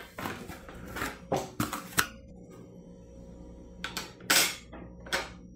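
Handling noise: packing paper crinkling and a run of light plastic clicks and scrapes as a slotted plastic drip-tray grate is set into the base of a coffee maker, with a few louder rustles after about four seconds.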